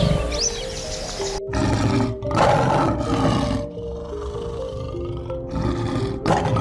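A big cat roaring in rough bursts: one about a second and a half in, a longer one just after, and another near the end. Background music with held notes plays underneath.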